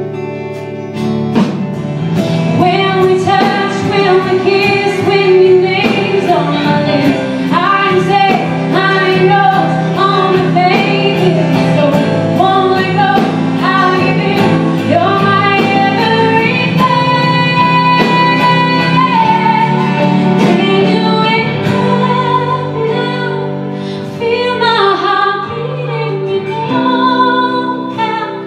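Live country band playing: a woman singing lead over guitars with a steady drum beat.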